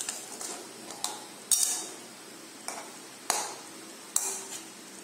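Metal spatula clinking and scraping against a metal kadai while stirring a simmering fish curry: about seven sharp clinks, some with a short metallic ring.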